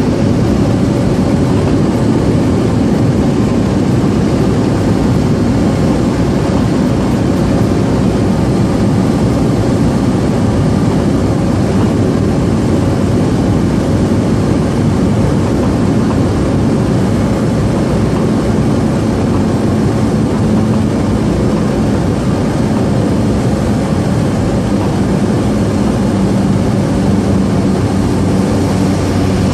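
Small high-wing propeller airplane in flight, its engine and propeller droning steadily as heard inside the cabin; a low hum stands out more in the last third.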